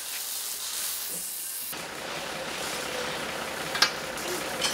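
Steady hissing noise that changes in character a little under two seconds in, with one short knock near the end.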